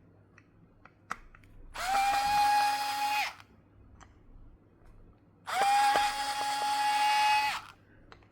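Small electric screwdriver running in two bursts, about a second and a half and then two seconds long, a steady whine that rises briefly as each starts: unscrewing a diecast model from its display base. A few faint clicks come before the first burst.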